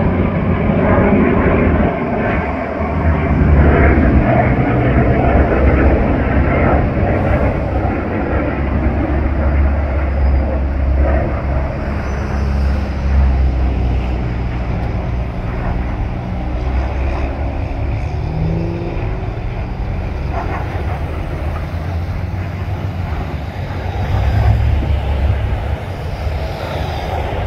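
Aircraft engines droning overhead during a flying display: a steady low rumble that swells and eases, louder a few seconds in and again near the end.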